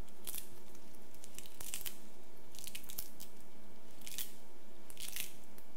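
Fresh cilantro sprigs being torn and snapped apart by hand: a series of short, crisp crunching snaps, about six in all, spread across a few seconds.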